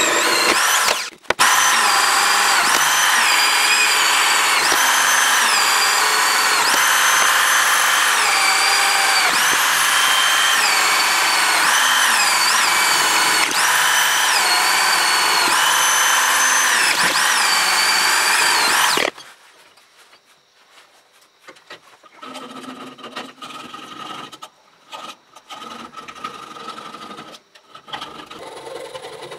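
Electric drill boring holes through a steel knife blank, its motor whine dipping and recovering again and again as the bit bites into the steel, with a brief stop about a second in. The drill stops about nineteen seconds in, followed by quieter, on-and-off scraping as a small round file works the drilled holes.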